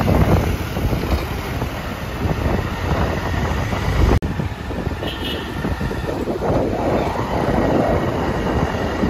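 Steady rumble of a moving vehicle, with wind buffeting the microphone; the sound drops out for an instant about four seconds in.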